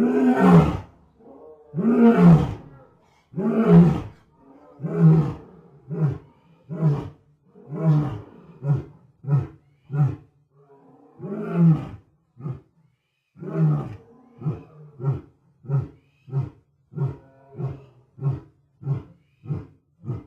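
A lion's roaring bout: four long, loud roars about a second and a half apart, then a run of shorter calls that grow briefer and come faster, about one every half second near the end.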